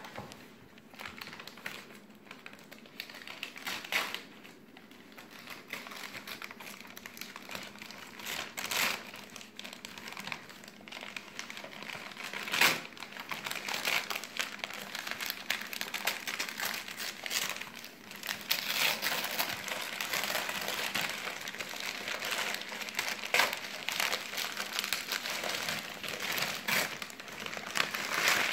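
Gift packaging crinkling and rustling as presents are unwrapped and handled, with many short sharp crackles; it gets busier and louder about two-thirds of the way through.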